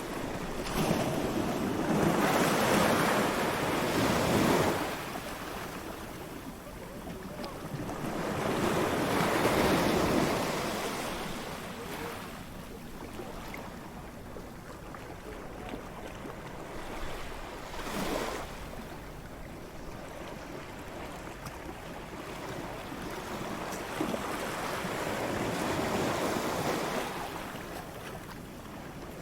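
Surf breaking on a beach, waves rushing in and washing back over a steady hiss of water. Two big breaks swell and fade in the first third, a short sharp break comes near the middle, and a softer, longer wash comes near the end.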